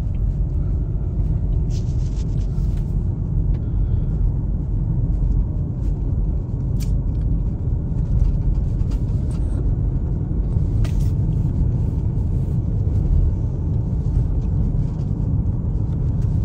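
Steady low road rumble inside a moving vehicle, with a few light knocks and clicks.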